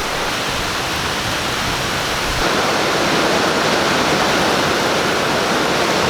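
Heavy thunderstorm downpour: a steady, loud hiss of rain coming down hard, growing a little louder about two and a half seconds in.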